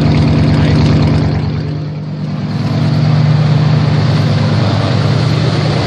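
The 1990 Ford F-150's fuel-injected 302 (5.0 L) V8 idling steadily, the sound dipping briefly about two seconds in; the owner calls this motor really tired.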